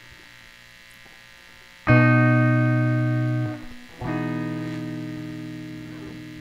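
Electric piano playing two sustained chords, one about two seconds in and the next about four seconds in, each slowly fading. Before the first chord there is only faint room hum.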